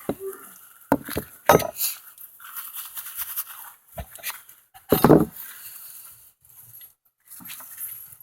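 Rubber mallet knocking on a crowbar wedged under a pallet board, a series of knocks with the loudest about five seconds in, and a scraping, creaking stretch between them as the board is levered loose from its nails.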